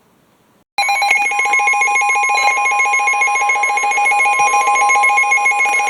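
Emergency Alert System attention tone: a loud, continuous alarm tone with a fast, even pulsing. It starts abruptly about three-quarters of a second in, after a moment of near silence.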